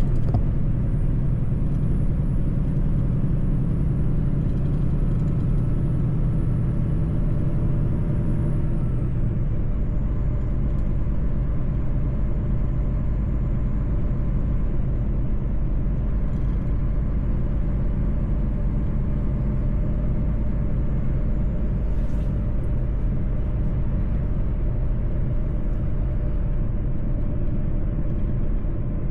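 Mercedes-Benz truck driving on the road: a steady engine drone with road rumble, the engine note dropping a little about nine seconds in. A short click about twenty-two seconds in.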